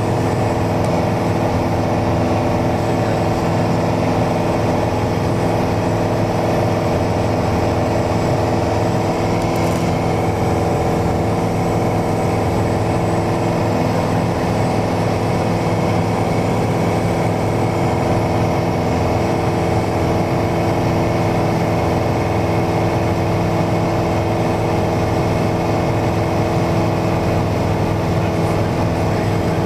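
Steady drone of a Mooney single-engine light aircraft's piston engine and propeller in flight, heard from inside the cabin, holding an even pitch and level throughout.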